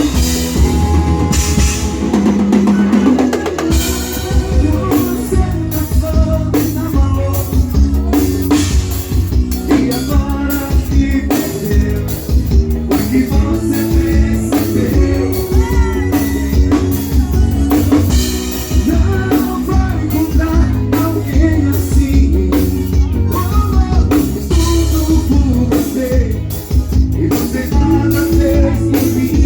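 Live forró band playing, heard from the stage, with the drum kit up front: a steady kick and snare beat under pitched instruments and a singer's voice.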